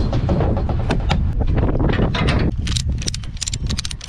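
A low rumbling for the first two and a half seconds, then a ratchet tie-down strap being cranked tight: a quick run of sharp metal clicks.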